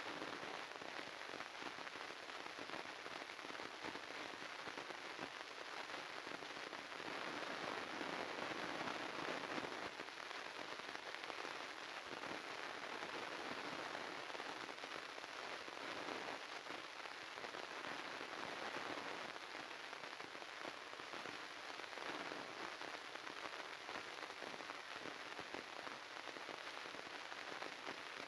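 Steady crackling static hiss from glitched audio output, with no speech or music under it.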